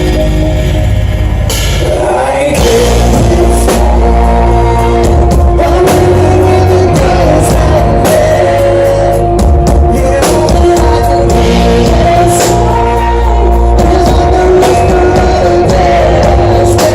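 Live rock band playing loud, with a steady drum beat, sustained electric guitar chords and bass.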